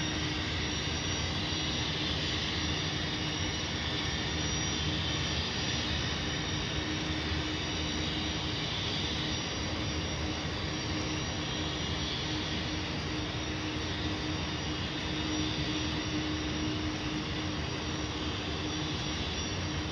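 Model gas-turbine locomotive's sound system running its steady turbine sound as the train rolls along, an even rush with a constant low hum under it.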